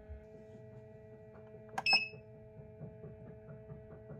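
A sharp click and a short high beep about two seconds in, as from a button press on the Kebonnixs 12-egg incubator's control panel, over a steady hum.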